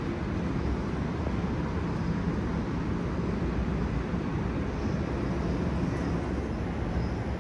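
Steady, low rumbling outdoor background noise with no distinct event.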